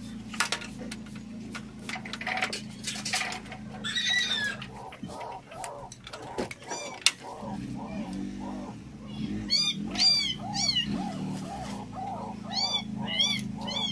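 Short high-pitched animal calls, each rising and falling, in two quick runs about two thirds of the way through and again near the end, over a steady low hum. Scattered knocks and clicks sound in the first few seconds.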